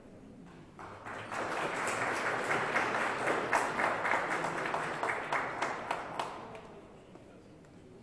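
Audience applauding, swelling about a second in and dying away by about seven seconds.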